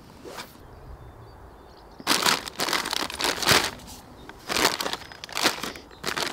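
Plastic bags of groundbait crinkling as they are handled, in several loud bursts starting about two seconds in.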